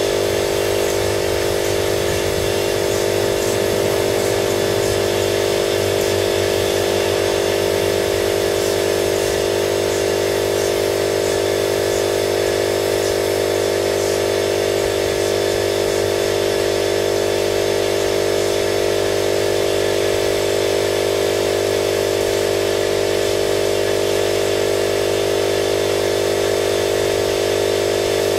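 Air compressor running steadily, feeding a paint spray gun: a constant loud mechanical drone with hiss over it.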